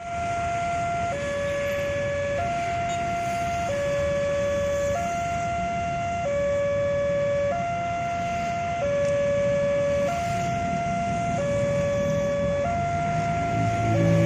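Two-tone hi-lo siren alternating steadily between a higher and a lower pitch, each held a little over a second, over a constant rumbling noise. A low droning tone joins near the end.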